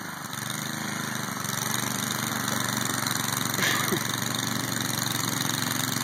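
A small engine running steadily, growing a little louder over the first second or two and then holding even.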